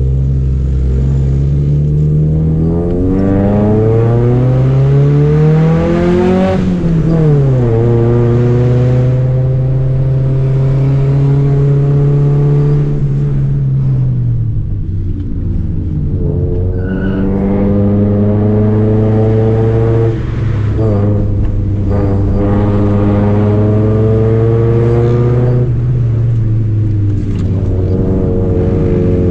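Honda Civic Nouva's four-cylinder engine heard from inside the cabin, pulling hard up a steep climb. The revs rise steadily for several seconds, then drop sharply about seven seconds in with the shift from first into second gear. They hold, then rise and fall again under load.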